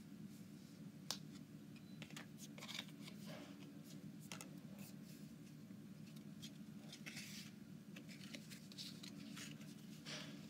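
Faint rustling and scattered clicks of Pokémon trading cards and pack wrappers being handled, with a sharper click about a second in, over a low steady hum.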